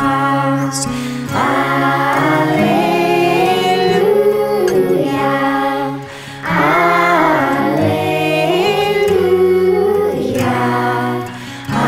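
Children's choir and a woman's voice singing a slow Scottish Gaelic carol together, over acoustic guitar. The singing breaks briefly between phrases about six seconds in and again near the end.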